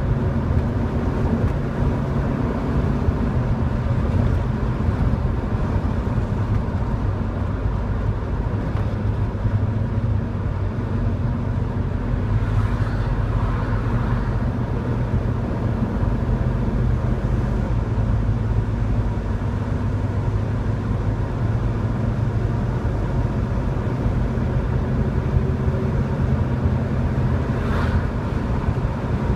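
Cabin sound of a classic Chevrolet Chevelle cruising at a steady highway speed. A steady low engine drone runs under tyre and wind noise.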